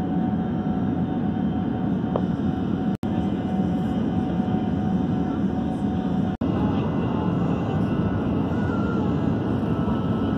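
Steady in-cabin noise of an Airbus A380 in flight: a low, even rush of airflow and engines with a faint steady whine above it. The sound cuts out sharply for an instant twice, about three and six seconds in.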